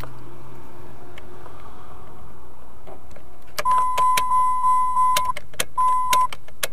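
Jeep dashboard warning chime beeping in a steady tone that starts about three and a half seconds in and breaks off and resumes twice, mixed with sharp clicks as the ignition key is cycled to bring stored trouble codes up on the odometer display. Before the chime, a low hum fades away.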